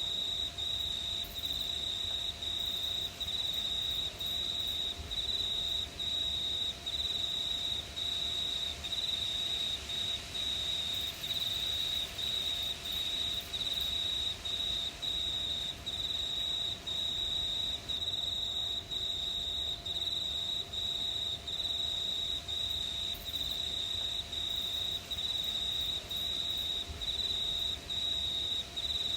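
Crickets chirping at night: a steady high-pitched trill broken by short, regular pauses about every two-thirds of a second.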